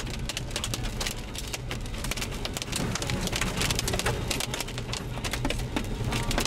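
Heavy rain and hail pelting the outside of a moving vehicle, a dense, irregular stream of sharp ticks over the low, steady rumble of the vehicle on the road.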